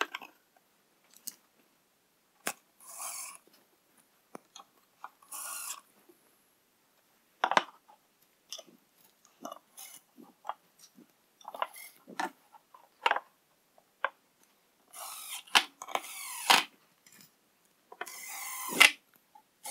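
Cordless impact driver driving screws in several short runs, the longest near the end, between small clicks and knocks of parts being handled and fitted.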